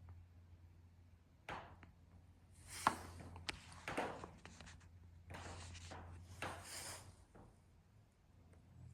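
Sharp pops from the riveted steel frame of a sunroom, the loudest about three seconds in: rivets expanding as the frame heats in direct sun. Softer scuffing and rustling lies between the pops.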